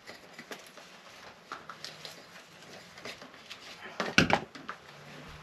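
Rustling and light knocks of things being handled while someone rummages for an item, with a cluster of louder thumps a little after four seconds in.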